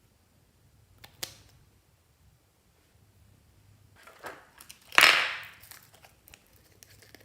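Fluffy slime being handled and mixed with added things: a short sharp click about a second in, then a louder noisy burst about five seconds in that fades over half a second.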